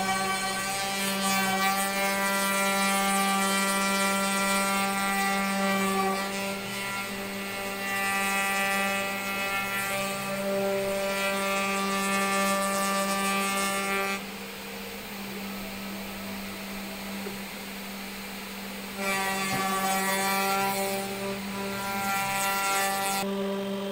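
DIY CNC router spindle running at 12,000 rpm with a steady whine, while a 90-degree V-bit cuts into MDF. About 14 seconds in the higher whine and the cutting noise drop away and the level falls, leaving a steady hum for about five seconds; near 19 seconds the cutting sound returns.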